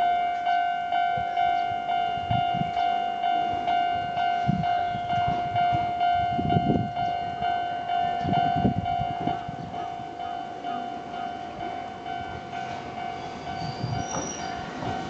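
Japanese level-crossing warning bell on the Enoden line sounding a pitched electronic ding that pulses about twice a second, its rhythm uneven and out of step. An electric train runs past through the middle and fades after about ten seconds.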